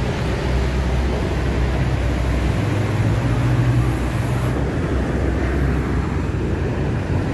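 City street traffic: a steady rumble of vehicle engines passing close by, with a deeper engine hum swelling about three seconds in.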